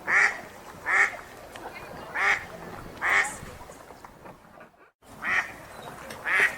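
Wild ducks quacking: six single loud quacks, roughly one a second, over a faint background haze. There is a short drop to near silence a little before the fifth second.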